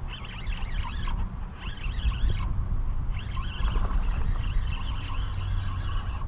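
Wind buffeting the microphone in a steady low rumble, with an intermittent higher-pitched chattering sound on top.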